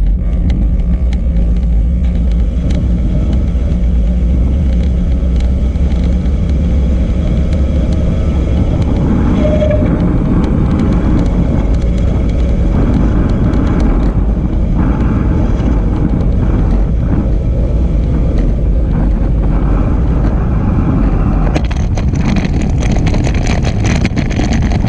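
Wind buffeting the microphone of a handlebar-mounted action camera on a road bike moving at speed: a loud, steady low rumble, with more hiss coming in near the end.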